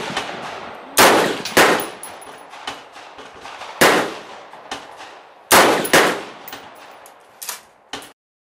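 AR-15 rifle firing single shots at an uneven pace, each report followed by a fading echo: five loud shots, then two weaker reports near the end, after which the sound cuts off abruptly.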